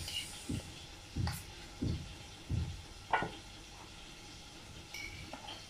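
Metal spoon scraping and tapping in a frying pan while scooping sticky, saucy barbecue chicken pieces into a bowl. There is a series of soft scrapes about every half second, a couple of them with a sharper clink, then it goes quieter near the end.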